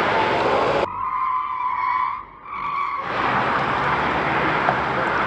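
Piëch GT electric sports car driving with steady tyre and wind noise. About a second in, the noise gives way abruptly to two stretches of steady, high tyre squeal, the second shorter. The tyre noise then returns.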